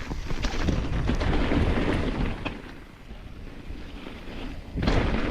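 Mountain bike descending a wet trail: wind rumbling on the microphone over the rolling of tyres, with scattered rattling knocks from the bike over bumps. It quietens about three seconds in, then picks up sharply near the end.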